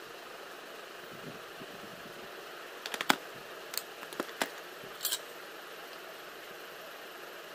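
A handful of sharp plastic clicks and taps, about three to five seconds in, from handling a plastic makeup mirror and a makeup pencil, over a steady background hiss.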